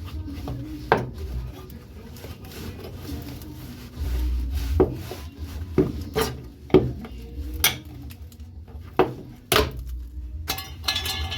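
Hammer knocking on metal: about eight sharp, irregularly spaced hits, with rubbing and handling noise between and a scraping sound near the end.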